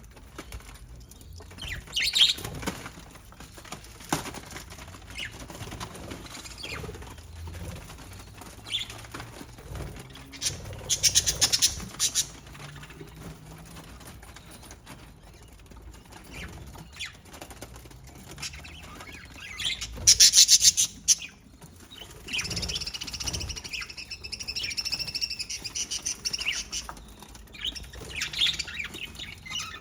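Budgerigars flapping their wings in two short loud flurries, and chirping and chattering in scattered calls, more steadily near the end.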